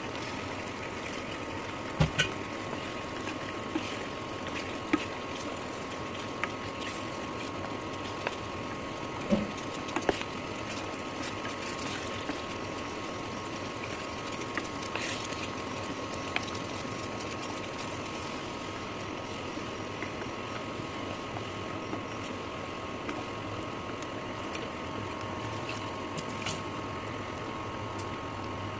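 Meat and masala gravy cooking in a non-stick pan on an induction cooktop: a steady hiss and hum, with a handful of sharp knocks of the wooden spatula against the pan in the first ten seconds or so.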